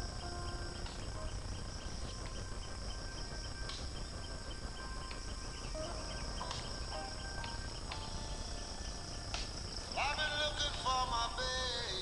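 Steady high-pitched insect chorus of crickets, with faint held musical tones. About ten seconds in, a louder voice calls out over it for a couple of seconds.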